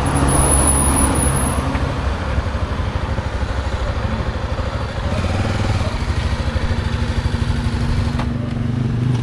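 Motorcycle engine running at low speed with a steady, rapid beat. Wind rushes on the microphone and drops away near the end as the bike comes to a stop.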